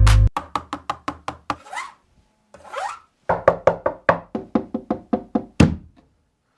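Boat Aavante Bar Quake soundbar playing a percussive passage of its audio test: quick, evenly spaced knocking hits, two rising whooshes in the middle, then another fast run of hits.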